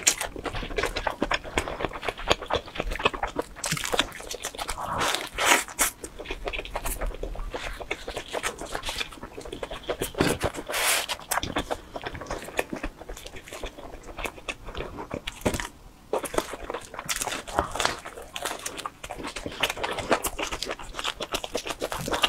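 Close-miked chewing and biting of pizza, with many small crunching clicks of the crust and mouth sounds.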